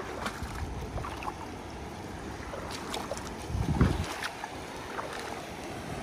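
Feet wading and splashing through shallow river water, in scattered short splashes over the rush of the flowing river, with one louder low thump a little past halfway.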